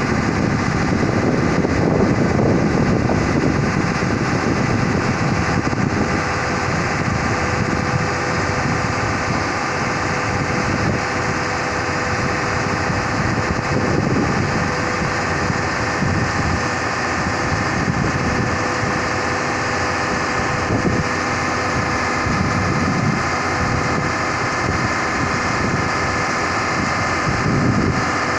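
Hyundai 215L crawler excavator's diesel engine running steadily under hydraulic load, with slow swells in level, as the machine presses its bucket into the ground and tips its tracks forward off a trailer.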